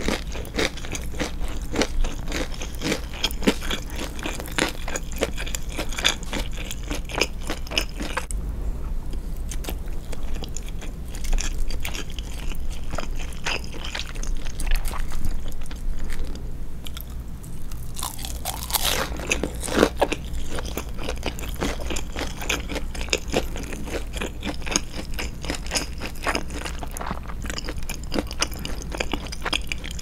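Close-miked biting, crunching and chewing of deep-fried breaded cutlet (tonkatsu and chicken katsu) with sauce. The crunching comes in dense runs, eases off for a while in the middle, and has one louder crunch about two-thirds of the way through.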